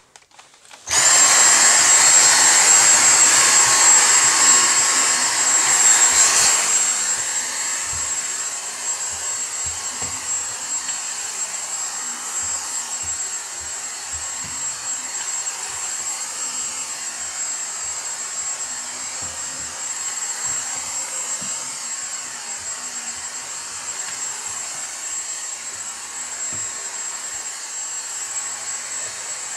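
Dyson V6 Fluffy cordless stick vacuum switched on about a second in, then running on its normal power setting with a steady high motor whine and a rush of suction air as its soft-roller cleaner head is worked over carpeted stairs. It is loudest for the first few seconds and then settles lower, with scattered light knocks.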